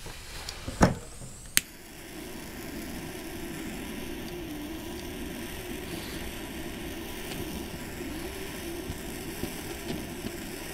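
Two sharp clicks about a second apart, typical of a lighter's igniter, then the steady hiss and low rumble of a lighter's jet flame held against a homemade can alcohol stove to light it.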